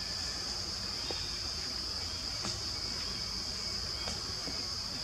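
Steady high-pitched drone of insects, with a few faint ticks.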